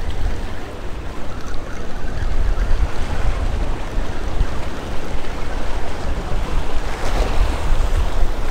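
Surf washing and splashing against the rocks of a jetty, with wind buffeting the microphone in a steady low rumble; a wave surges up a little louder about seven seconds in.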